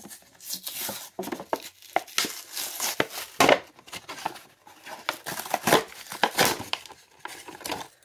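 A toy's blister pack being torn open by hand: cardboard backing ripping and the clear plastic blister crinkling in a run of irregular rips and crackles, loudest a little past the middle.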